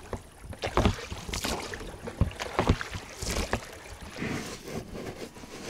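Inflatable rowing boat under way: irregular splashes and knocks from the oars, a stroke every second or so.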